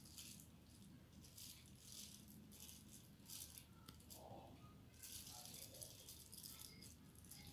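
Near silence: room tone with faint, scattered high crackling rustles of handling.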